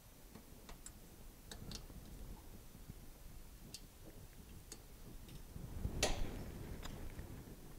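Faint, scattered small clicks and ticks of a pick working the retaining clip out of an oil cooler line fitting, with one louder click about six seconds in.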